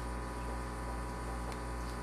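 Steady low electrical hum with a faint hiss, and a faint tick about one and a half seconds in.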